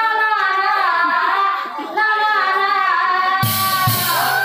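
A woman singing nagara naam, the Assamese devotional folk song, in long held phrases with wavering pitch. Two heavy strokes of the large nagara kettle drums come in about three and a half seconds in, close together, leaving a low ring beneath the voice.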